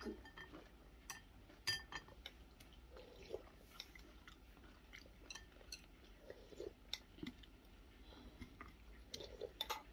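Faint eating sounds: metal chopsticks clicking against a ceramic rice bowl now and then, with chewing.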